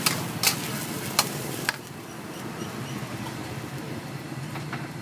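Four sharp knocks, roughly half a second apart, in the first two seconds, over a steady low hum of background noise.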